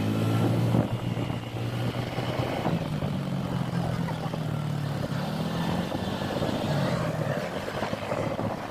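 A motor vehicle's engine running on the move, its hum stepping up and down in pitch a few times over steady road noise.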